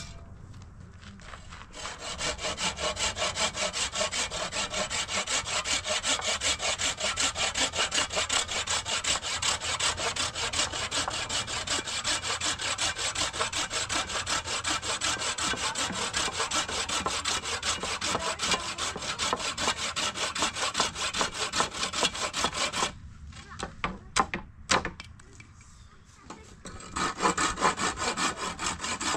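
Hand saw cutting wood with fast, even back-and-forth strokes. The sawing stops about 23 seconds in, a few separate knocks follow, and then it starts again near the end.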